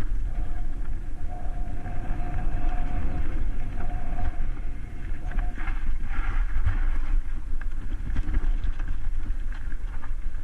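Mountain bike riding down a loose, rocky trail: constant wind buffeting on the microphone with the rumble and rattle of tyres and frame over stones, and sharp knocks as the bike hits rocks. A steady thin whine runs through the first half.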